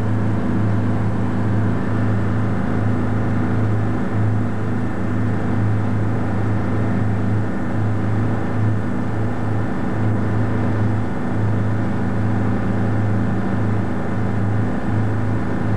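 Boat engine running steadily underway, a constant low drone.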